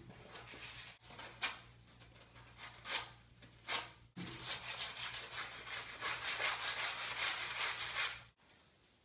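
Pine picture frame being sanded by hand with a sanding block: a few separate strokes at first, then a little before halfway a fast, steady back-and-forth scrubbing that stops suddenly near the end.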